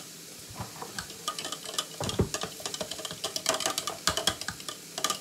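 Raw eggs being stirred in a plastic cup with a utensil: a quick, irregular clatter of taps against the cup's sides.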